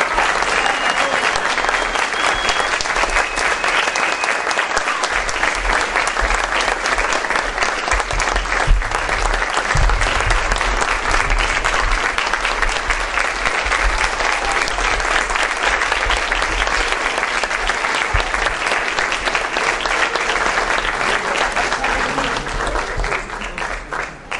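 Theatre audience applauding steadily, the clapping dying away near the end.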